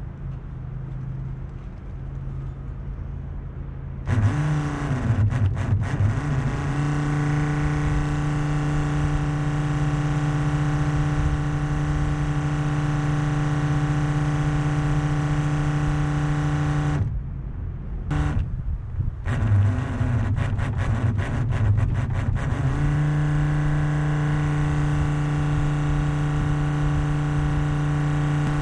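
12-volt Flojet diaphragm pump of a soft wash rig running with a steady hum. It switches on suddenly about four seconds in, cuts out for a moment past the middle, stutters, and comes back on to run steadily again.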